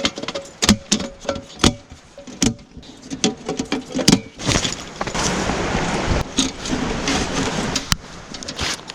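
A string of sharp clicks and knocks as camping gear is handled, giving way about halfway through to a steady rush of river water.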